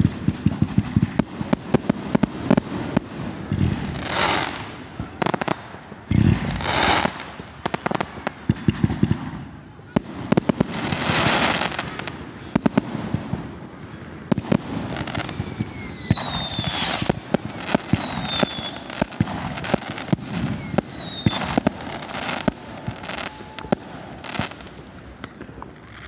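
Fireworks going off: rapid sharp crackling bangs and several rushing hiss bursts, with three falling whistles from whistling fireworks in the middle.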